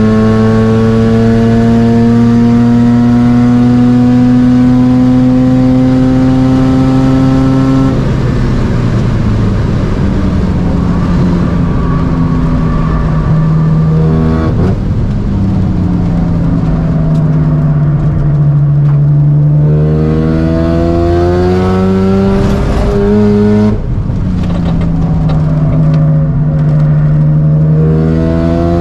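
Mazda RX-7 FD3S's single-turbo 13B twin-rotor engine under hard track driving, heard from inside the car. The engine note climbs steadily through a long pull for the first eight seconds, then falls away. After that it dips and climbs again several times, with abrupt breaks at gear changes around halfway and about two thirds of the way in.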